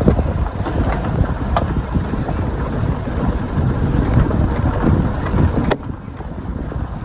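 Wind buffeting the microphone, a loud fluctuating low rumble. A sharp click comes near the end, after which the rumble drops and stays lower.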